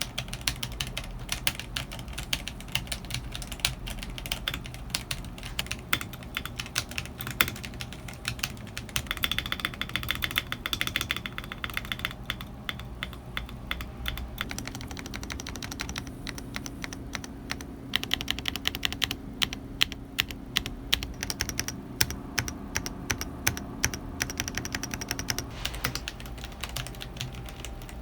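Fast typing on a Redragon KS82-B mechanical keyboard fitted with PBT keycaps: a dense, continuous run of key clicks.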